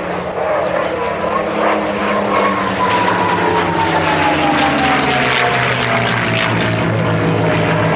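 Piston-engined propeller fighter flying past, its engine note growing louder over the first few seconds and then falling slowly in pitch as it passes.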